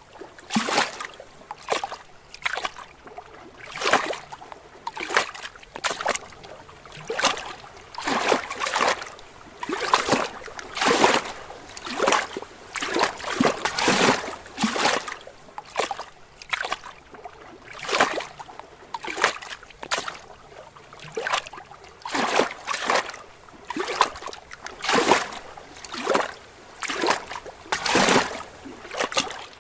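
Small lake waves lapping and splashing against rocks in short, irregular slaps, roughly one a second.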